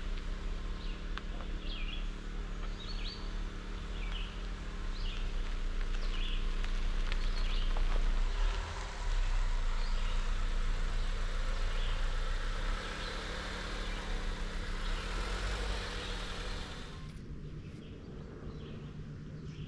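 Vehicle road noise: a steady low engine-and-tyre rumble with a hiss that swells and then drops off sharply near the end. Over it, a short high chirp repeats about once a second.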